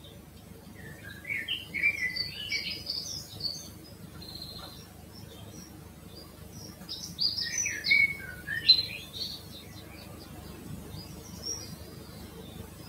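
A songbird singing two quick, jumbled, chirpy song phrases of about two and a half seconds each, one about a second in and one about seven seconds in, with a faint short snatch near the end.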